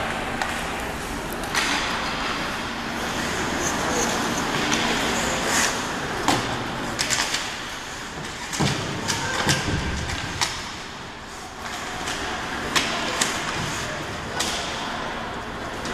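Ice hockey game play in an indoor rink: irregular sharp cracks and knocks of sticks striking the puck and the puck hitting the boards, over a steady noisy background of the rink, with voices calling out now and then.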